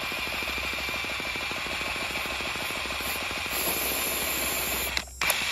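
The small motorised drive of a Lego engine rig, which works its pump, running with a fast, steady rattle. It cuts off suddenly about five seconds in, followed by a couple of sharp clicks.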